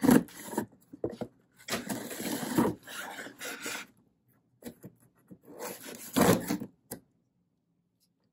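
Packing tape on a cardboard box being slit open with a small hand tool drawn along the seam: rough scraping and tearing of tape against cardboard in three bursts, the last about six seconds in.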